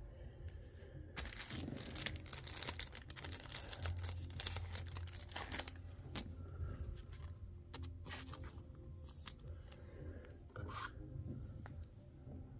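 Soft plastic card sleeve rustling and scraping as a trading card is handled and slid into it, in short irregular scratchy bursts.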